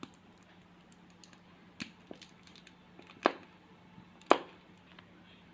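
Light scattered clicks and taps from handling a plastic glue bottle and mixing bowl, with two sharper taps about three and four seconds in, over a faint steady hum.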